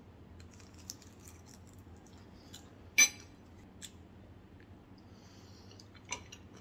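Eating utensils, a metal spoon and chopsticks, clinking against a ceramic bowl: scattered light clicks and one sharp clink about three seconds in.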